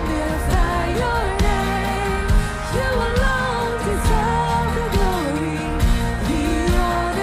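Live worship band with singers: voices sing a slow melody over keys, guitars, bass and drums, with drum hits about once a second.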